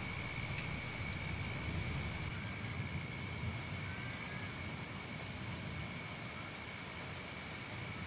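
Steady rain falling, with a low steady rumble beneath it and a thin high note held steady over it.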